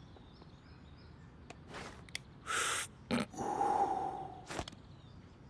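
Vape pen being used: a few small clicks, then breathy hisses of a drag being drawn in and vapour blown out, one carrying a steady whistling tone, and a last click.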